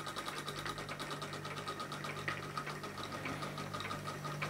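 Bowman E158 model steam engine running down with its burner turned off: a fast, even ticking from the engine and its meshing gears, the beat spacing out as the gearing's drag slows it toward a stop.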